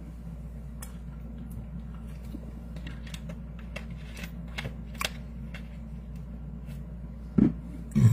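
Light, irregular taps and clicks of a phone being handled close to its microphone, over a steady low hum. Two short, louder low sounds come near the end.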